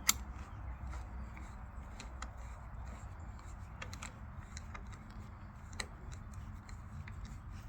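Faint scattered small clicks and scrapes of a screwdriver turning and snugging the retaining screw of a car door lock cylinder, with a sharper click at the start and another about six seconds in, over a low steady hum.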